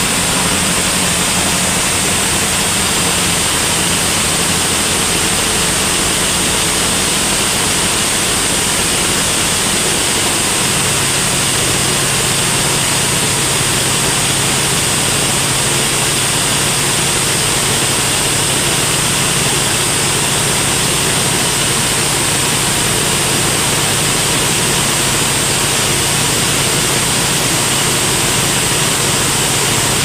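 Large vertical band sawmill running, its blade sawing lengthwise through a big trembesi (rain tree) log as the carriage feeds it, cutting a 10 cm thick slab. The noise is loud and steady, with a high whine above it, and its low hum steps slightly higher about ten seconds in.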